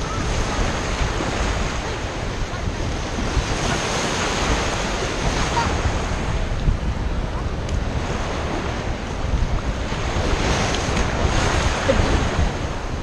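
Ocean surf washing and breaking, swelling louder twice, with wind buffeting the microphone.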